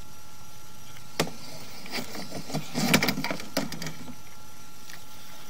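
Handling noise from a sewer scope camera head, which is being grabbed by a gloved hand: a sharp click about a second in, then a cluster of knocks and scrapes for about two seconds.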